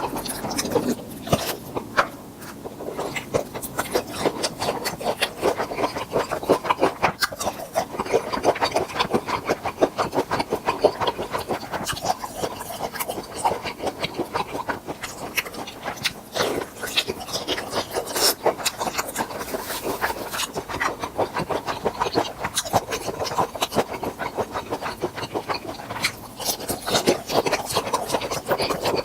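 Close-miked eating of grilled tiger prawns: steady chewing and crunching, a dense run of crackly, rasping mouth sounds.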